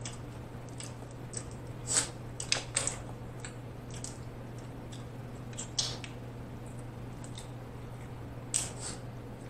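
Snow crab leg shells cracking and snapping as they are broken apart by hand, heard as scattered sharp cracks with some wet squishing, over a steady low hum.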